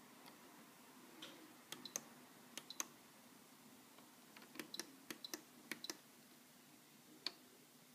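Small sharp clicks in irregular clusters, a dozen or so, from hands working an AEG Lavamat washing machine, over a faint steady hum.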